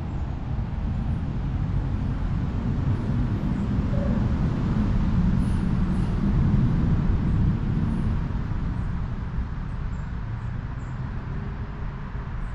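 Wind gusting, a low rumbling rush that builds to a peak about six seconds in and then eases off.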